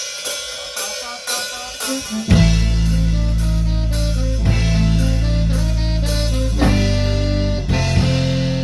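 Ska band playing live in rehearsal: a drum kit beat with guitar, the full band coming in loud with low sustained notes about two seconds in.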